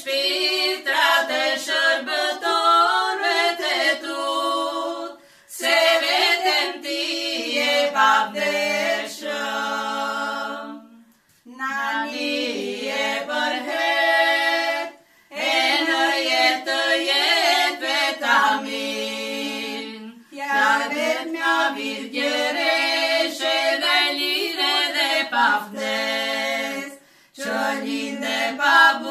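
Three women singing a traditional Arbëreshë song a cappella, in long phrases with short breaks between them.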